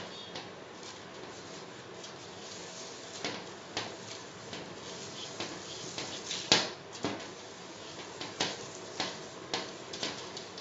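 Irregular sharp clicks and knocks, a dozen or so, more frequent in the second half, the loudest about six and a half seconds in, over a steady low hiss.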